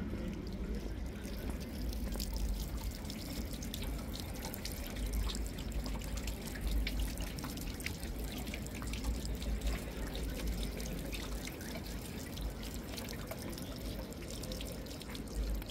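Water trickling and dripping from the thin spouts of a small stone fountain into its basin, a steady stream of small, irregular splashes.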